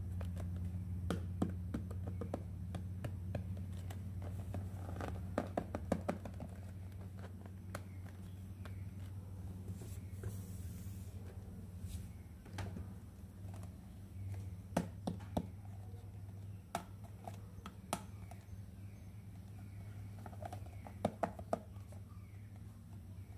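Hands handling small plastic toy pieces, setting them down and fitting them together: scattered sharp clicks and taps in small clusters over a steady low hum, with a brief rustle about ten seconds in.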